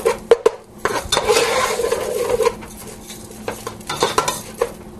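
A spoon stirring risotto rice with onions and garlic in a buttered pot to toast it, scraping along the pot and knocking against its sides, with sizzling underneath. Sharp knocks come right at the start and again in the second half.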